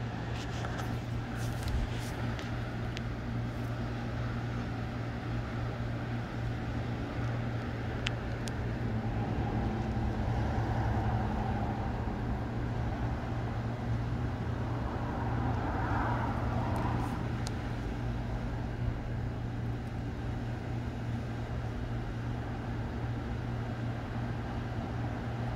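Strong gusty wind blowing, swelling twice in long gusts, over a steady low drone.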